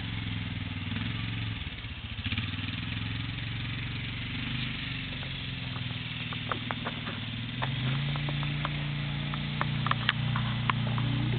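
ATV engine running steadily as it is ridden, getting louder about two-thirds of the way through. Scattered sharp clicks are heard over the second half.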